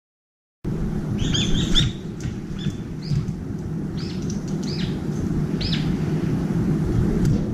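Brown-eared bulbul calling: a quick burst of shrill, arching calls about a second in, then single calls every second or so, over a steady low city rumble. The sound is cut out entirely for the first half second.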